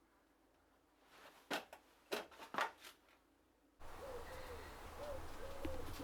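A few sharp clicks or knocks in the first half. From about four seconds in, a steady low background rumble with a pigeon cooing several times.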